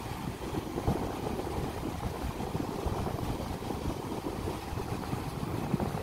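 Wind buffeting the microphone in uneven, gusty low rumbles, with the wash of small waves on the shore underneath.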